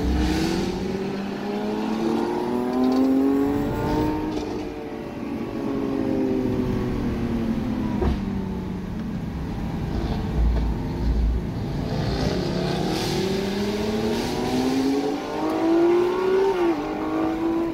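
Lamborghini Aventador SVJ's V12 engine heard from inside its cabin, revving up and easing off on a twisty road. The pitch climbs for the first few seconds, falls away, climbs again later and drops suddenly near the end.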